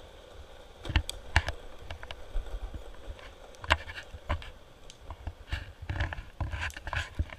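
Skateboard wheels rolling on asphalt with a low rumble, broken by several sharp clacks.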